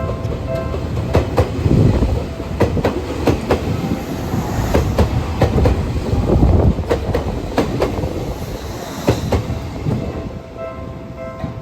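Train of railcars (Seibu old 2000-series EMU sets being hauled on a transfer run) passing close by, wheels clacking in quick, uneven runs over rail joints above a steady rolling rumble. A repeating ringing tone stops in the first second and returns near the end.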